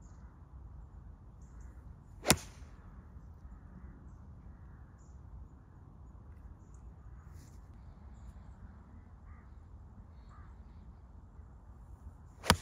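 Two sharp cracks of a golf iron striking a ball, about ten seconds apart, over steady low wind noise.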